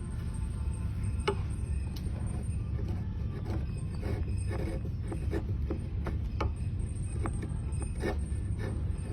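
A series of light, irregular clicks and taps over a steady low hum.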